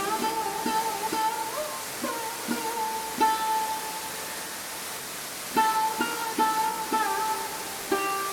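Background music: a light tune of plucked strings, picked about twice a second under a held melody line.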